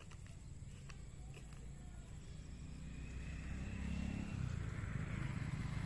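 A motor vehicle engine running, growing steadily louder as it comes closer.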